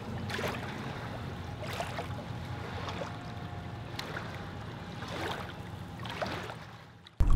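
Water trickling and splashing around a kayak, with a few light knocks.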